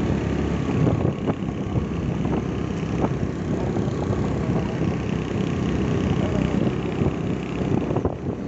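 Motorbike running at a steady speed on a paved road, its engine and the road and wind noise heard from the rider's seat, with a couple of light knocks.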